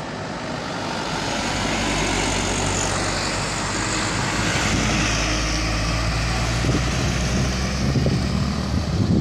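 A fully laden truck carrying sengon logs drives past. Its tyre and road noise swells over the first couple of seconds, and a low engine drone grows strong in the second half.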